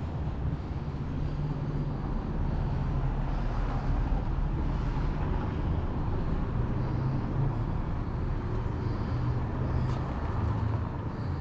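Delivery van's engine running close by, a low hum over general street traffic noise.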